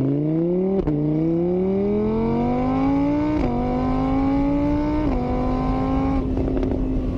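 A vehicle engine accelerating through the gears. Its pitch climbs steadily, drops at each shift about a second in, again near the middle and once more, then holds steady near the end.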